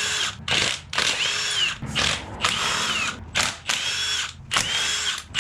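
Cordless power tool running out the 10 mm bolts on an LS engine: about seven short bursts, each a motor whine that speeds up and then winds down as a bolt spins loose.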